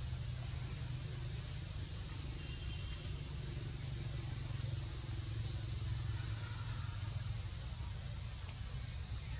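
Steady high-pitched insect chorus, with a low steady rumble underneath and a couple of faint short chirps.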